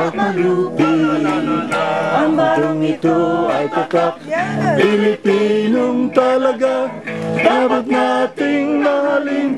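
Singing with guitar accompaniment, a steady flow of sung notes throughout.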